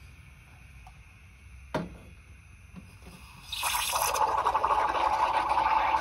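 A single sharp knock a little under two seconds in, then about three and a half seconds in the Bellman CX25-P stovetop espresso maker's steam wand opens into a stainless milk jug: a sudden, loud, steady hiss of steam frothing the milk.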